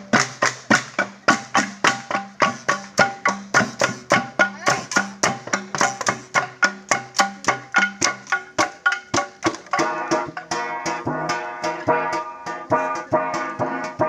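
Ifugao gong ensemble playing a steady rhythm of struck, ringing beats, about three strikes a second. From about ten seconds in the playing grows denser, with the ringing tones overlapping.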